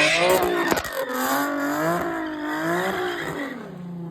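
A car's engine revving up and down again and again while drifting, with tires screeching on the pavement; it fades away toward the end.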